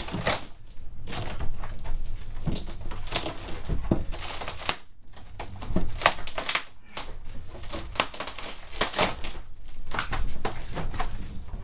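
Sheet of old plywood flooring being pried and peeled up off glued-down rigid foam insulation, crackling and tearing irregularly as the beads of glue let go.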